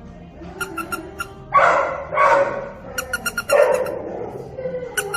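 A dog barking three times, with short pauses between the barks.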